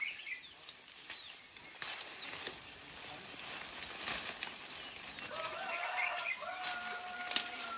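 Scattered light clicks and rustles under a faint steady high whine. About five seconds in, an animal gives a drawn-out call at a steady pitch for about three seconds, dropping slightly as it ends.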